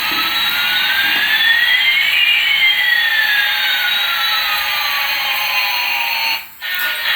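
Electronic whooshing sweep: a steady hiss carrying two tones, one rising and one falling, that cross about a third of the way through. It cuts out briefly near the end.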